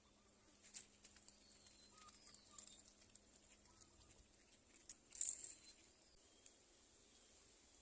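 Quiet background with scattered faint clicks and one short, louder rustle about five seconds in.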